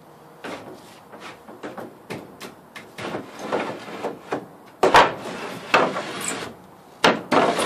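Homemade wooden-plank roll-up door sliding along its wooden tracks as it is pulled down by a strap: irregular wooden knocks and rubbing. The loudest knocks come about five seconds in and again near the end.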